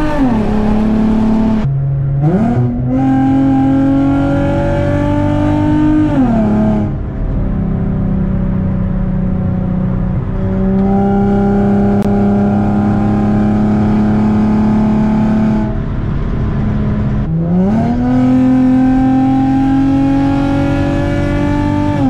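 Infiniti G35 coupe's VQ V6 through a straight-pipe exhaust, heard from inside the cabin. The revs drop, climb in a pull of about four seconds, settle into a steady drone for about eight seconds, drop again, then climb in a second pull near the end.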